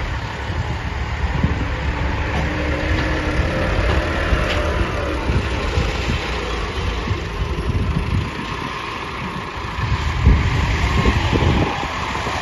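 Heavy diesel machinery engine running steadily with a low rumble, with a few louder knocks near the end.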